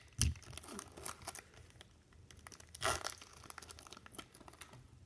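The foil wrapper of a baseball card pack being torn open and crinkled, with a series of short crackles and two louder rips, one about a quarter second in and one near three seconds in.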